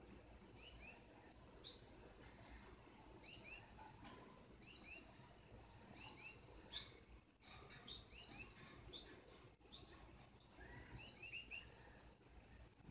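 Gouldian finch calling: about six bursts of short, high double chirps a second or two apart, with a few fainter single notes between.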